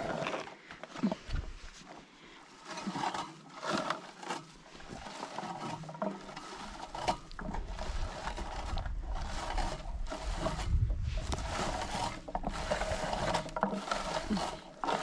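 Rustling and brushing of leaves and clothing with short scrapes, joined from about six seconds in by a low, uneven rumble of wind buffeting the microphone.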